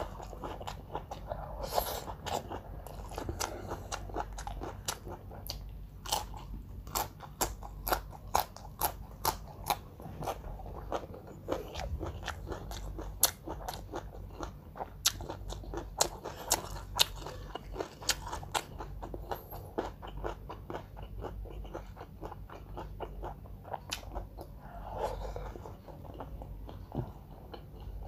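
Close-up eating sounds: chewing and biting into crunchy food, a quick irregular run of sharp crunches and mouth clicks.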